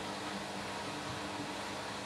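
Washing machine running on a spin cycle with footballs in the drum: a steady mechanical hum with faint low motor tones and no distinct knocks.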